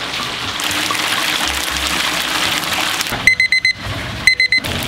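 Digital kitchen timer beeping at zero, two quick bursts of high beeps about a second apart, signalling that the chicken's frying time is up. Before the beeps, a steady hiss of chicken frying in a deep fryer.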